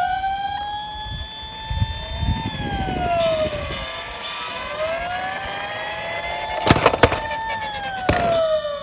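Several emergency-vehicle sirens wailing at once, each slowly rising and falling in pitch and overlapping the others. A low rumble comes in around two seconds, and a few sharp clacks come near the end.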